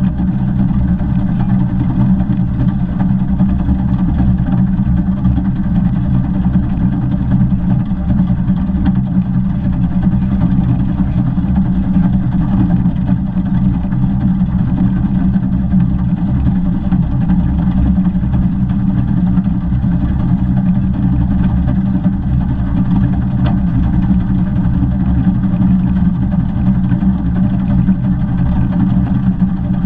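The 15-inch gauge steam locomotive 'Northern Rock' on the move, recorded from its cab side: a steady, loud running rumble that does not change.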